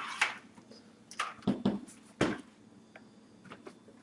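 Metal computer case being handled and laid down on its side: a few separate clunks and knocks, the loudest about two seconds in, followed by a couple of light ticks.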